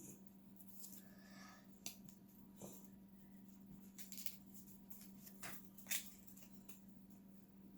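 Faint handling of a paper explosion-box card: light rustles and about five small clicks and snaps as its paper flaps and photo panels are lifted and pushed, the sharpest near the end, over a steady low hum.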